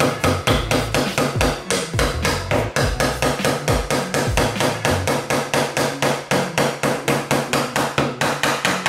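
Small Stanley Jr. kids' hammer rapidly tapping small nails into the thin wooden roof panel of a kit birdhouse, with a fast, even run of light strikes at about five a second.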